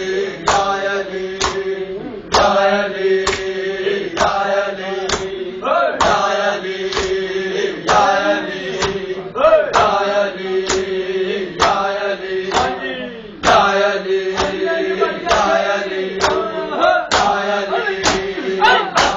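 A group of men chanting a Shia noha lament in unison, with loud rhythmic slaps of matam chest-beating about once a second.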